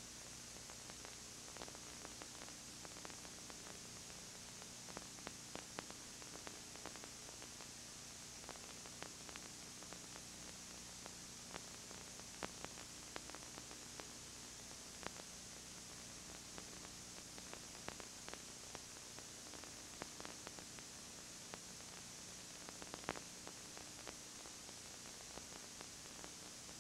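Steady hiss with a faint low hum and scattered small clicks: the background noise of a videotape transfer of security-camera footage that carries no sound of its own.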